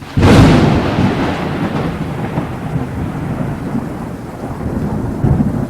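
A sudden loud thunderclap about a quarter second in, followed by a long rolling rumble over steady rain.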